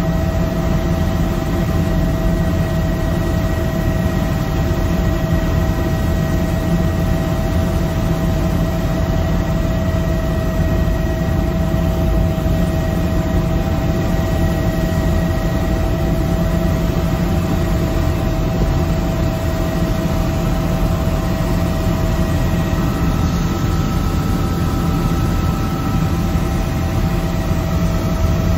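Helicopter in flight heard from inside the cabin: a loud, steady rotor and turbine drone with a constant whine on top, and another steady tone joining about 23 seconds in.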